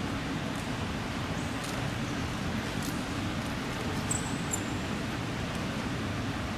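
Steady low room noise of a sports hall, with a few faint high squeaks and light ticks over it, the loudest squeak about four seconds in.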